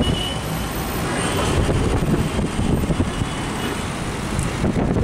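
Steady rumble of a vehicle's engine and road noise while driving through city traffic, heard from on board.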